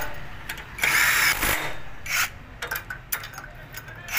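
Cordless drill-driver spinning a socket on an engine's cylinder-head bolts. It runs in short bursts, about a second in and again about two seconds in, with a run of sharp clicks after them.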